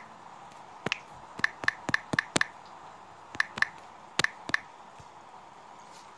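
Phone on-screen keyboard key clicks as a password is typed: about ten short, sharp ticks at an uneven typing pace, in three quick clusters, over faint steady hiss.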